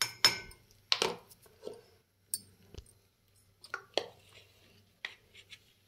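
A steel spoon clinking and tapping against a stainless steel mixer-grinder jar as salt is spooned in on top of the spices: a scattering of short, irregular clinks.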